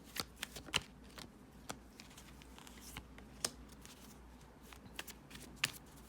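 A tarot deck being shuffled by hand: cards riffling and snapping against each other in scattered sharp clicks.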